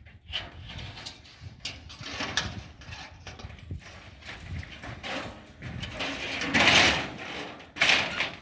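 Sheet of tin roofing sliding and scraping as it is worked into place on a roof, in uneven bursts, loudest about two-thirds of the way in and again near the end.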